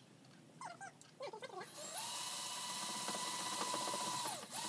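Power drill motor spinning up to a steady high whine, running for about two and a half seconds and winding down. A brief second run follows near the end.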